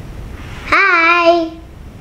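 A young boy's voice: one drawn-out sung note, lasting just under a second, that swoops up at the start and then holds steady.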